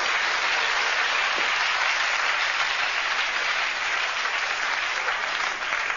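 Theatre audience applauding, a dense, even clapping at a steady level throughout.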